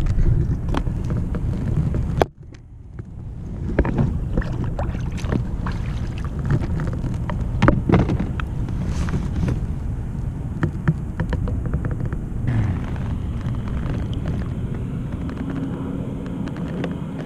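Steady low rumble with scattered clicks and knocks from handling a striped bass in a kayak. The sound cuts out briefly about two seconds in.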